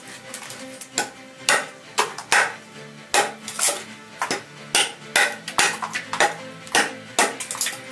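Large 440C fixed-blade knife, a copy of the Cold Steel Trail Master, cutting or chopping in sharp, repeated strokes, about two a second, over background music.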